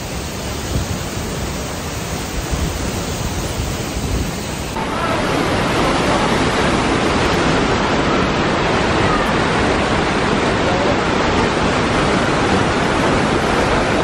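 Steady rushing of running water, a loud even roar with no rhythm. It gets louder about five seconds in, at a cut.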